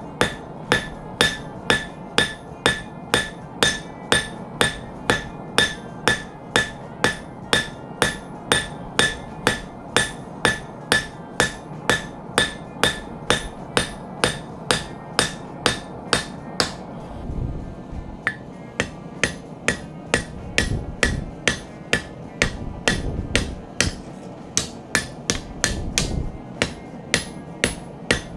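Hand hammer forging hot spring steel on an anvil in a steady rhythm of about two ringing blows a second. About 17 seconds in the blows stop briefly, then resume a little faster with a low rumble underneath.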